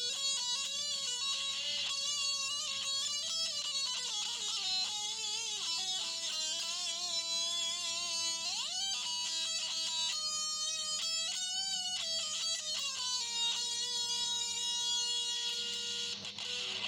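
Aria Mac-Series electric guitar playing a single-note lead line through an amplifier, with wavering vibrato, a quick slide up about halfway through, and a long held note near the end. Steady amplifier hum and hiss sit underneath.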